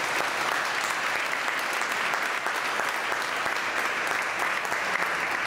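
Audience applauding: many people clapping steadily in a church.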